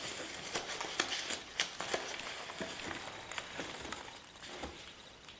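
Handling noise of kit parts and packaging being taken out of a box: rustling with scattered light clicks and knocks, growing quieter toward the end.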